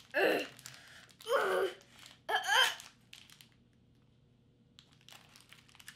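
A child grunting with effort, three short strained sounds about a second apart, as she pulls a plastic snack bag open, followed by faint crinkles of the wrapper.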